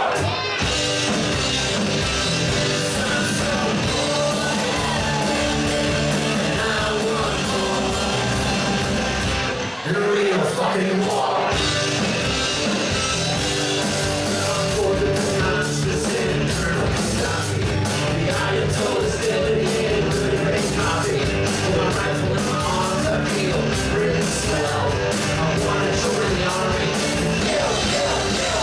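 Live rock band playing at full volume: electric guitars, bass and drums, with a sung lead vocal. The band drops out briefly about ten seconds in, then comes back in.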